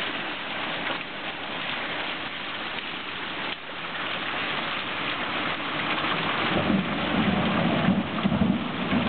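Heavy rain pouring down in a storm, a dense steady hiss. About two-thirds of the way in, a low rumble joins it and the sound grows louder.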